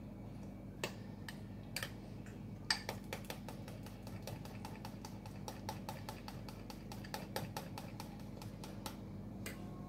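Steel spoon clinking against a glass bowl while briskly stirring a thick semolina-milk pudding batter: a few separate clicks, then a quick, even run of about five clicks a second lasting some six seconds. A low steady hum runs underneath.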